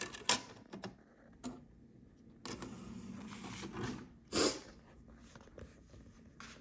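Clicks and knocks as the CD tray of an Emerson NR303TT all-in-one player is pushed shut on a disc. A soft mechanical whirr follows for about a second and a half as the player loads the disc, then a single sharp knock.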